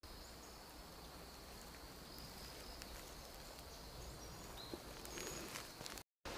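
Faint jungle ambience: a thin, steady high insect drone with a few brief bird chirps in the second half.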